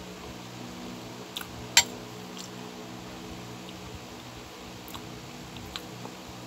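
A metal spoon clinks sharply once against the bowl about two seconds in, with a smaller clink just before it, then faint wet clicks of chewing. A steady low hum runs underneath.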